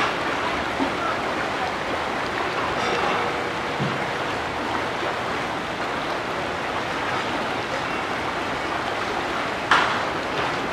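Steady rush of running water. One brief sharp sound comes near the end.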